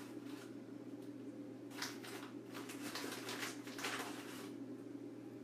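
Measuring spoon scraping and rustling in a container of baking soda: several short scrapes about two, three and four seconds in, over a steady low hum.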